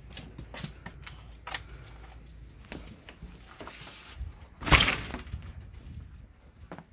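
Light crunching steps on fresh snow on a porch, with one loud thump about two-thirds of the way through.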